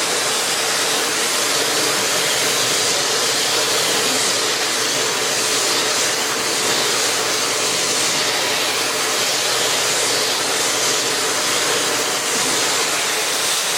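Eureka Floor Rover upright bagless vacuum cleaner running steadily under suction, with its hose-mounted mini turbo brush spinning. A steady rushing noise with a low hum running under it.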